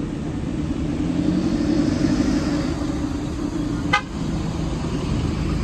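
Large diesel vehicle engine running with a steady low hum, and a single sharp click about four seconds in.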